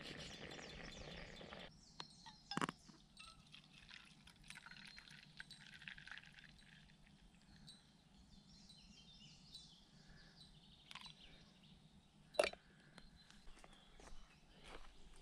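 A moka pot on a canister gas burner hisses, and the hiss cuts off about two seconds in. A few sharp metal clinks of the moka pot and a steel camping mug follow, the loudest near the end, over faint birdsong.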